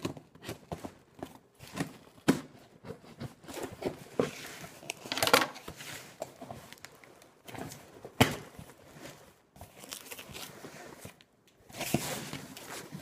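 Cardboard shipping box being opened by hand: tape tearing, flaps scraping and crinkling, with sharp knocks. The loudest come about two, five, eight and twelve seconds in.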